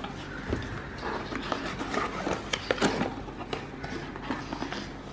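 Cardboard product box being opened by hand: flaps lifted and pulled, with irregular rustling, scraping and small clicks of cardboard against cardboard and fingers.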